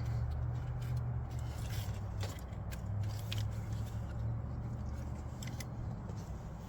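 A steady low hum with scattered light clicks and scrapes, like metal tools being handled on an engine.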